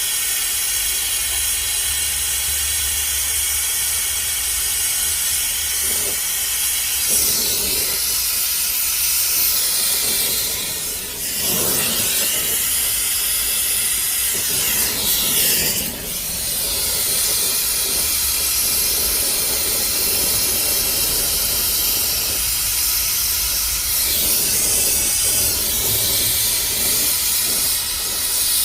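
A steady hissing jet, its tone shifting and briefly dipping a few times as it is moved around.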